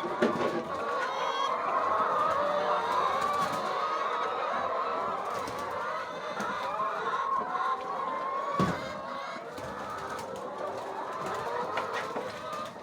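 A flock of chickens calling and clucking continuously, many overlapping voices, with a single knock about two-thirds of the way in.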